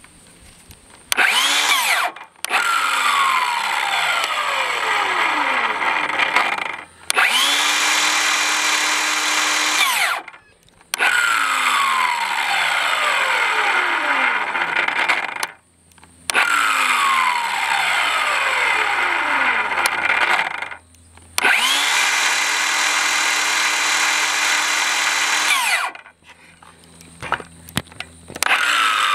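Milwaukee M18 Fuel 7-1/4 inch cordless circular saw (2731-20) run with no load, triggered over and over in runs of a few seconds each. The motor whine rises quickly at each start. In some runs it holds a steady pitch. In others the pitch keeps sinking while the saw is still running. The saw is one its owner reports as dying after less than a year of use.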